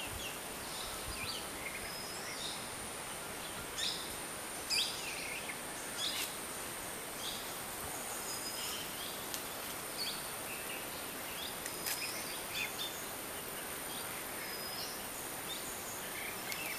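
Birds calling in scattered short chirps and whistles, some rising and some falling, over a steady high hiss of tropical forest ambience.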